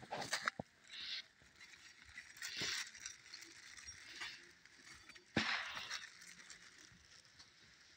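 Irregular rustling and crunching of footsteps through leafy pumpkin vines, with a sharp knock about five and a half seconds in as the loudest sound.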